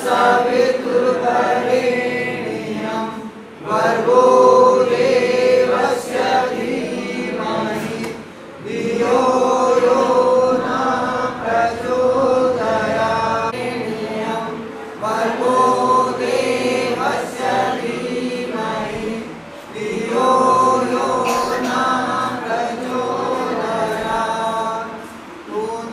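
A group of voices chanting together in long phrases of about five seconds, each broken off by a short pause for breath.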